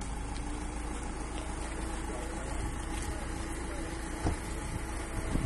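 Ambulance van's engine running at idle, a steady low hum, with people talking faintly in the background and a single knock about four seconds in.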